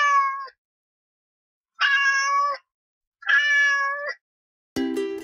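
A cat meowing three times, each meow just under a second long and fairly level in pitch, with short silences between. Plucked-string music starts near the end.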